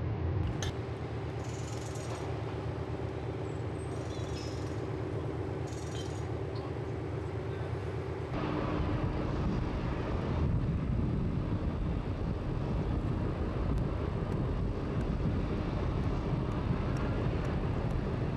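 Concrete pump and truck mixer running steadily, with a few brief hissing bursts. About eight seconds in the sound changes abruptly to a louder, lower engine rumble.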